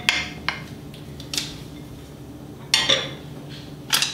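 A utensil clinking and scraping against a glass mixing bowl as it is stirred by hand, with scattered sharp knocks. A louder clatter comes about three seconds in and again at the very end, as the bowl is set down on the stove.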